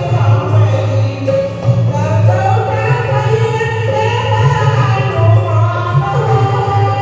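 Singing of a Hindi devotional bhajan to Hanuman, the sung melody gliding and held over steady instrumental accompaniment.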